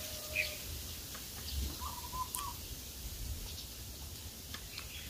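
Faint, scattered bird chirps, a few short calls a second or more apart, over a low background rumble.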